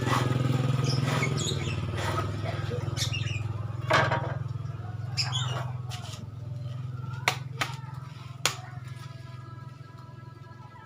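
A low engine hum, fading away over the second half, with birds chirping and a few sharp knocks.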